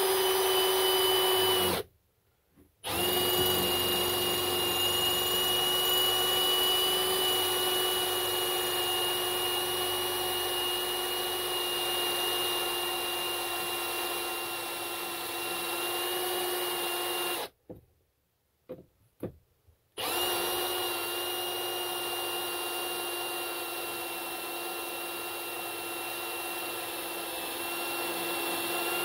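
Hand-held power drill running steadily, its 8.5 mm pilot bit cutting into an aluminium billet. The motor whine stops about two seconds in and restarts a second later, then stops again past the middle for a couple of seconds, with a few light clicks, before running on.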